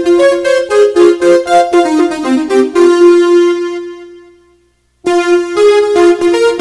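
Background music played on a keyboard, a melody of quick piano-like notes. About three seconds in, one note is held and fades away to a brief silence, then the music starts again.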